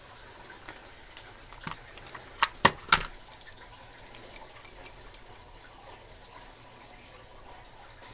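Metal keys and padlocks being handled, with a few sharp clicks and clinks, then a short light jingle of keys with a brief high ring.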